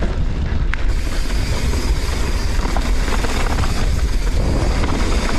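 A mountain bike rolling fast down a dirt trail: a steady low rumble of wind buffeting the action camera's microphone, with the hiss and rattle of tyres and bike over the trail surface.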